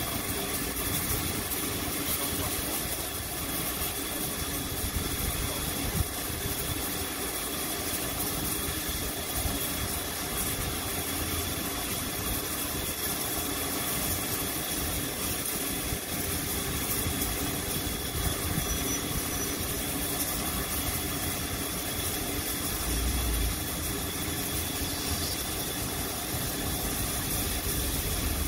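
Stationary Bulleid West Country class steam locomotive 34092 simmering at the platform: a steady hiss and hum of steam with a few constant tones.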